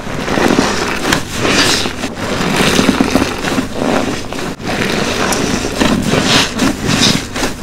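Soapy, foam-soaked sponge being squeezed and released by hand over and over, squelching in uneven strokes about once a second.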